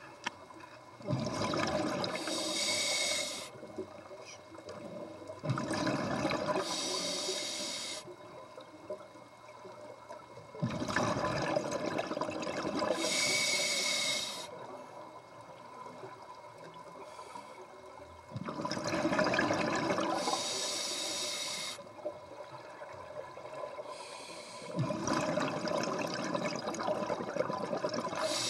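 Scuba diver breathing through a regulator underwater: each breath brings a hiss from the regulator and a rush of exhaust bubbles. There are about five breaths, spaced roughly five to seven seconds apart.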